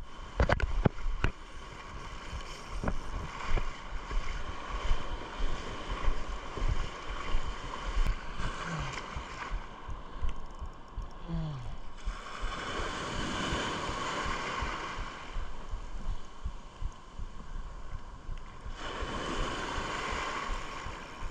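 Surf washing in over a shallow sandy beach, with wind buffeting the microphone. The wash swells louder twice, about twelve and nineteen seconds in.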